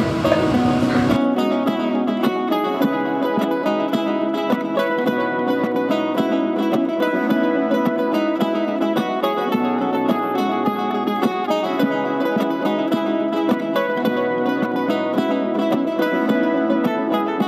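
Background music: a plucked acoustic guitar loop.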